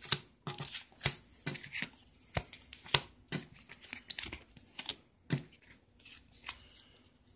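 Sleeved trading cards being pulled from a deck and laid down one at a time on a wooden table: irregular sharp clicks and slaps of card on wood, with the plastic sleeves rustling in between.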